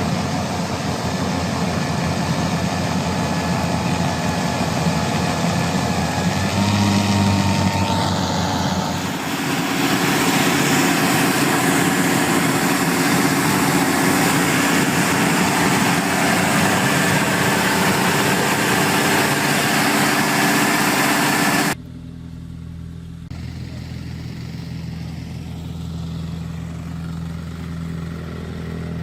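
Engines of working machinery running loudly, with a sudden cut about 22 seconds in to a quieter, lower engine sound.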